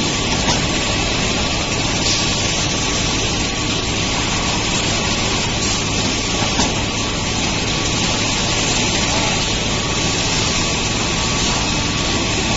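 Kitchen-towel production line machinery with a paper case packing machine running: a steady, even mechanical noise with a thin constant whine and a few light clicks.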